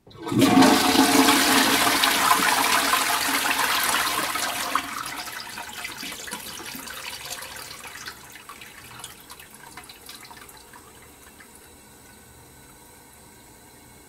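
Toilet flushing: a sudden loud rush of water that holds for about four seconds, then dies away over the next several seconds to a faint steady hiss.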